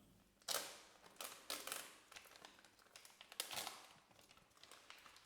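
Faint crinkling and rustling of product packaging being opened and handled, in a series of short irregular bursts.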